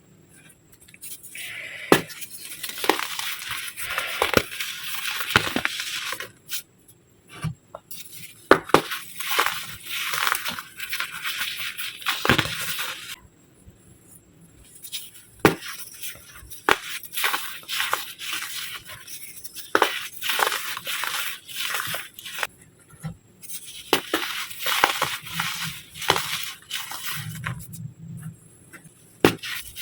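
Compacted baking soda being crushed: dense, crunchy crumbling and crackling with sharp snaps, in several bouts separated by brief pauses.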